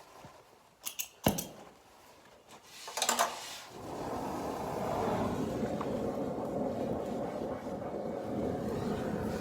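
Oxy-acetylene cutting torch being lit: two sharp clicks about a second in and a short burst about three seconds in, then the flame hissing steadily.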